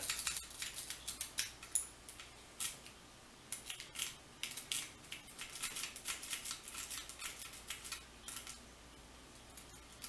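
A metal lock pick raking in and out of the keyway of a KW1 (Kwikset-style) pin-tumbler lock cylinder, with quick scratchy clicks of the pins coming in uneven bursts, while working the pins toward a false set. The clicking thins out near the end.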